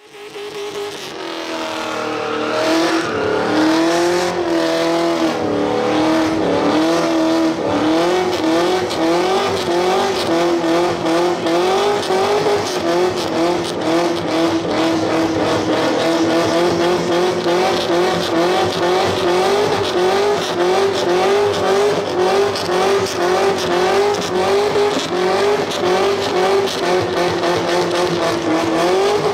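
A car doing a burnout: the engine is held at high revs that waver up and down, while the spinning tyres squeal steadily. The sound fades in over the first couple of seconds.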